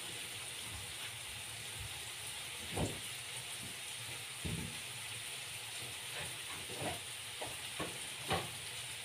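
Food sizzling in a frying pan on a gas burner, a steady sizzle with a few faint knocks scattered through it.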